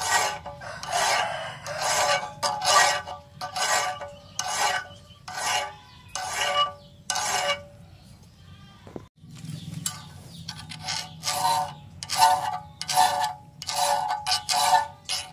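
Hand files rasping on the edge of a crescent of truck leaf-spring steel clamped in a vise, in regular strokes about one a second. A pause of about two seconds comes just past the middle. After it the strokes, made with a round file inside the curve, carry a ringing metallic squeal.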